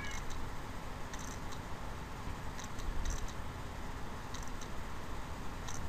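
Steady background hiss and low hum, with faint light clicks, often in quick pairs, about once a second or so.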